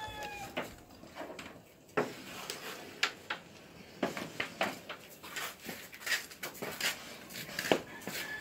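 A cue striking a flat disc-shaped cue piece on a wooden pool table about two seconds in, then a run of sharp clacks and knocks as the discs hit each other and the wooden rails.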